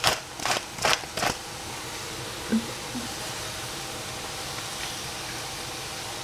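Hand-twisted spice grinder crackling out four quick grinds, about two a second, over a pot of greens. After that only a steady, even background hiss remains.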